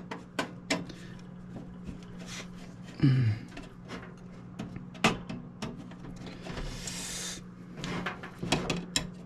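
Scattered clicks and knocks of a computer power supply being handled and opened with a screwdriver, with a short scraping hiss about seven seconds in, over a steady low hum.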